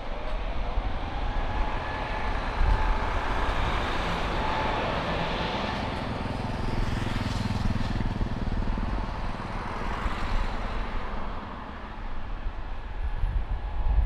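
An airliner's engines as it passes by: a whine that climbs in pitch over the first two seconds, over a roar and rumble that swell to a peak in the middle and ease off near the end.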